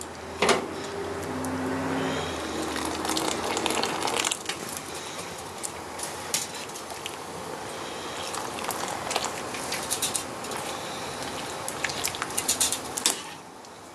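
A pot of salted water at a rolling boil, bubbling steadily while Chinese broccoli leaves are blanched. Metal tongs click against the pot now and then as the leaves are lifted out, with a cluster of clicks near the end.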